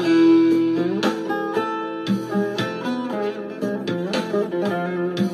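Instrumental passage of a Turkish folk song: a plucked string instrument plays a melody of quick plucked notes, some of them held.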